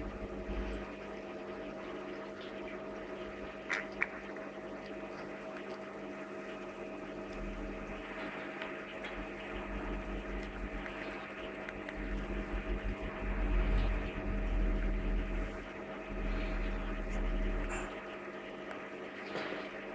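Steady electrical hum of a reef aquarium's pumps over an even hiss of moving water. Two light clicks come about four seconds in, and a low rumble comes and goes in the second half.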